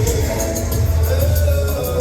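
Line-dance music played loud over the sound system, with a steady beat of bass and high, evenly spaced cymbal ticks and a melody line on top.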